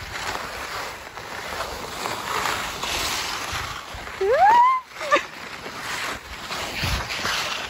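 Wind rushing over the microphone on an open ski slope, with a short cry rising in pitch about four seconds in.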